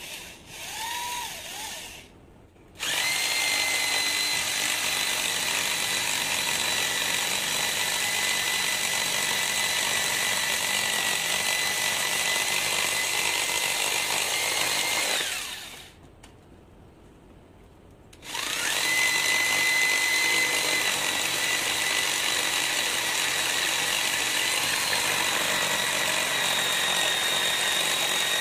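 Corded electric drill driving a homemade reciprocating-saw attachment, its blade cutting through a wooden pallet board: a steady high whine. After a short burst at the start, it runs for about twelve seconds, winds down, and starts again after a pause of about two seconds.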